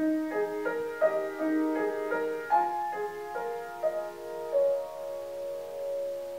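Piano music: a slow, gentle melody of single notes at about three a second, settling on a long held note about four and a half seconds in.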